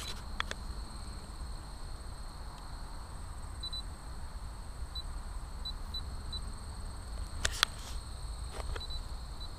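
Handling noise and low wind rumble on a handheld camera's microphone, with a couple of sharp clicks about seven and a half seconds in.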